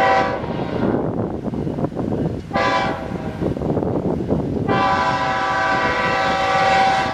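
BNSF diesel freight locomotive's multi-note air horn. One blast ends right at the start, a short blast comes about two and a half seconds in, and a long blast is held from about two-thirds of the way through to the end, all over the low rumble of the passing train. This short-then-long close fits the standard grade-crossing warning pattern.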